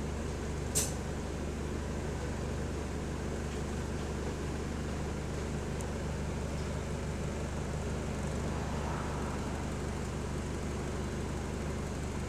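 Steady engine and running drone of an Alexander Dennis MMC bus, heard from inside the passenger saloon, with a strong low hum underneath. A brief sharp high-pitched click cuts through about a second in.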